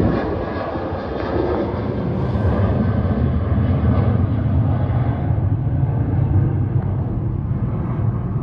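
Jet airliner climbing out after takeoff, its engines a steady low rumble that grows duller as it flies away.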